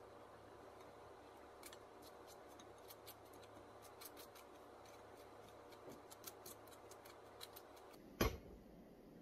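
A wooden spoon spreading strawberry jam across a slice of white bread on a ceramic plate: a run of light scrapes and clicks. Near the end, one sharp knock.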